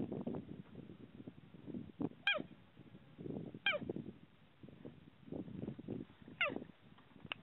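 Adult female cheetah giving three short, high chirps that slide steeply down in pitch, a couple of seconds apart: a mother cheetah's call to her cubs. A low rushing noise runs underneath.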